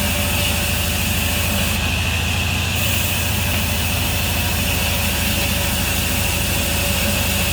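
Sawmill saw running steadily: a constant low machine hum with a steady high whine above it.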